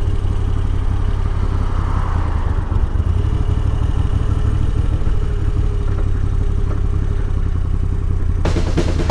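A Moto Guzzi V85 TT's air-cooled transverse 90° V-twin runs steadily under way at low speed, heard from the rider's seat. Near the end, drum-led music cuts in.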